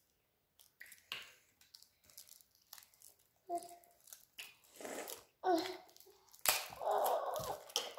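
Plastic wrapping crinkling and tearing in scattered short rustles and clicks as small juice cartons and their straws are handled, with a denser rustle about a second and a half from the end. A couple of brief child voice sounds come in between.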